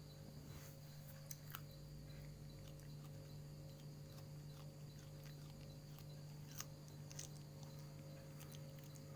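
A cat chewing raw long beans: faint, scattered crunching clicks over a steady low hum.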